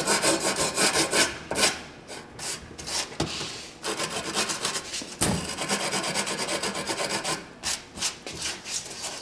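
Metal Allen wrench scraped along sandpaper-like grip tape over the edge of a scooter deck in a quick, irregular series of scraping strokes, creasing the tape to mark the line to cut along.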